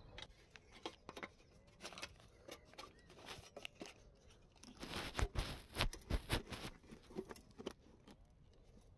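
Small sticks and loose stones being handled and pushed into a hole in rocky ground. Irregular cracks, scrapes and knocks, busiest about five to six and a half seconds in.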